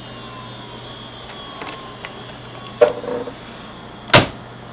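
Plastic lid of a Compaq LTE 5250 laptop being handled and shut: a knock a little past halfway, then a sharper, louder clack near the end as the lid closes, over a faint steady low hum.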